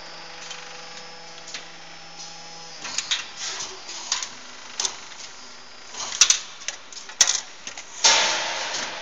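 Automatic gear cold-forging hydraulic press line running. A steady hum gives way about three seconds in to a run of sharp metallic clicks and knocks from the machine's moving parts. Near the end a sudden loud rush of noise fades away over about a second as the press cycles.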